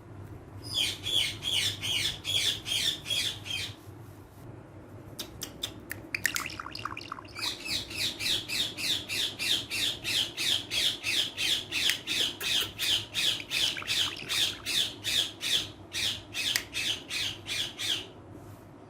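Pet parrot squawking in fast, evenly repeated harsh calls, about four a second, in two long runs; in the pause between them come a few sharp clicks and some short calls sliding down in pitch.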